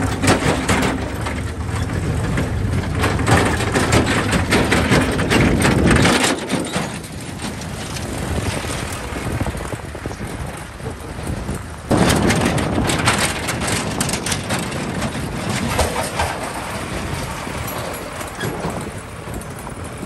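Diesel farm tractors pulling steel trolleys driving past on a rough dirt road: engines running, with the trolleys clattering and rattling over the bumps.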